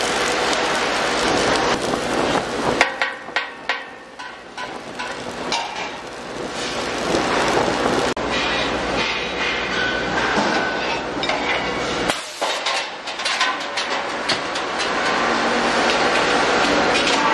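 Submerged arc welding of a steel LPG cylinder's seam under granular flux, with dense irregular crackling and metallic clatter of a cylinder workshop. The noise eases for a few seconds about three seconds in and again briefly about twelve seconds in.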